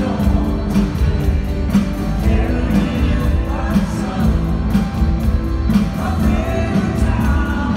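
Live rock band playing with a steady drum beat, a heavy bass and a woman singing lead over keyboards, as heard from the audience in a concert hall.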